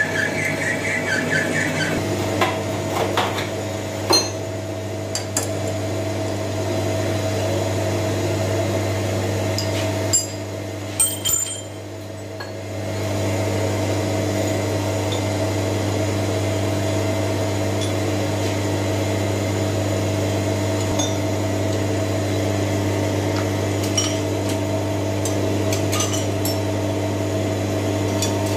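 Metal lathe running, its motor and gearing humming steadily as it turns a steel bar, with scattered sharp metallic clicks and clinks. The running sound dips briefly near the middle and then comes back up.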